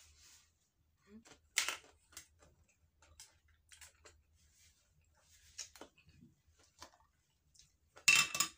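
Soft scattered clicks and taps of chewing and handling tableware, with one sharper knock about a second and a half in. Near the end comes a brief loud clatter of several sharp strokes as a glass jar is picked up off the table.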